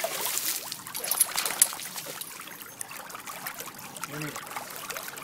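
Swimming-pool water splashing and trickling, with a quick run of sharp clicks about a second in.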